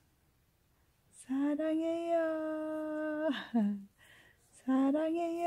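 A woman's voice crooning "saranghaeyo" (I love you) to a baby in a drawn-out sing-song, each phrase held on one steady pitch, twice: first about a second in, again near the end, with a short falling slide between.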